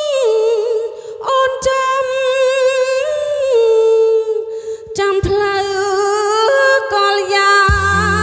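A woman singing a Khmer song into a microphone, holding long notes that step up and down with a slight waver, with little accompaniment beneath her. The band's bass and drums come in near the end.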